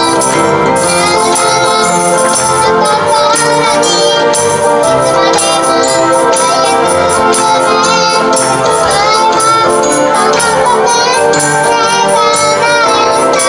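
A young girl singing a pop song over a recorded backing track.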